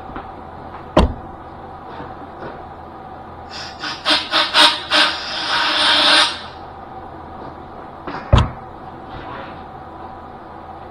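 Metal parts handled at a stopped lathe: a sharp knock about a second in and another near the end, and in the middle a couple of seconds of clattering that runs into a scraping rub, over a steady low hum.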